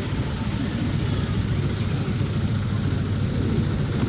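Amusement park ride train running: a steady engine drone and rumble heard from on board as it rolls along.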